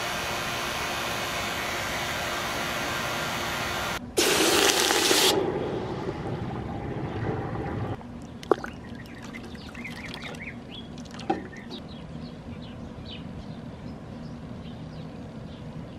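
A vacuum-casting pump runs steadily while molten pewter is poured. Then a loud rush of water and fizzing as the plaster-filled steel flask is plunged into a bucket of water, dying down over a few seconds into soft bubbling. Two sharp clinks of metal tongs follow.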